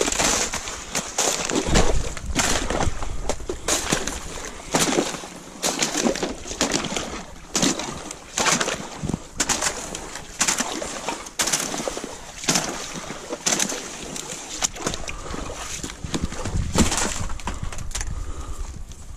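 Boots breaking through thin ice on flooded ground, crunching and crackling with each step, about one a second, with water splashing.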